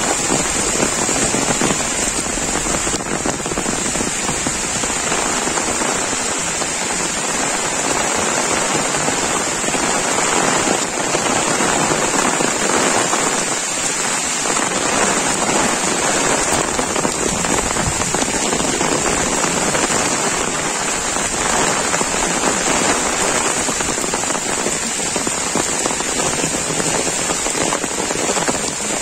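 Heavy monsoon rain pouring steadily, a dense, even hiss of rain falling on leaves and wet ground.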